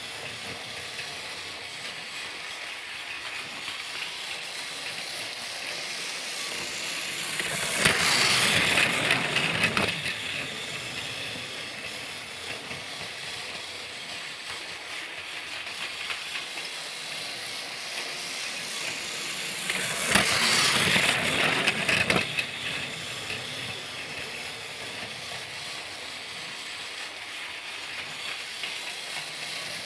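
Thomas the Tank Engine toy train running, a steady whirring, rattling hiss that grows louder twice, each time for about two seconds.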